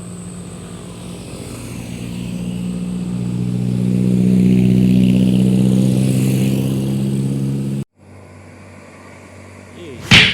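A bus's diesel engine pulling uphill as it passes, growing louder to a peak about halfway through and then cutting off abruptly. A single sharp loud knock comes near the end.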